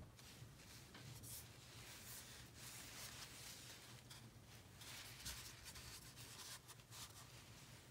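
Faint rubbing and rustling of hands handling a Google Home smart speaker, turning it over so skin slides on its plastic shell and fabric base, over a low steady hum.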